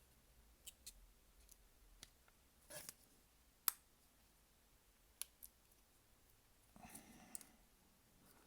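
Faint, scattered clicks and taps of small phone parts and tools being handled while fitting parts to a new phone back cover, with one sharper click near the middle.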